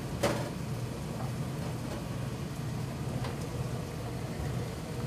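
Steady low machine hum, with a sharp knock about a quarter of a second in and a few lighter taps as a tailor's electric iron is pressed dry, without steam, onto the mink coat's paper-backed edge and then lifted.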